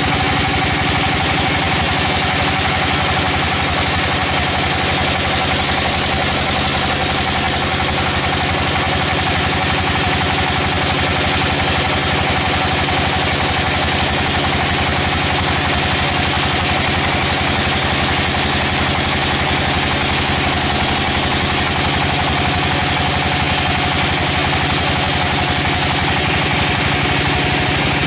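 An engine running steadily at an unchanging speed, with a fast, even pulse, most likely the engine of sawmill machinery.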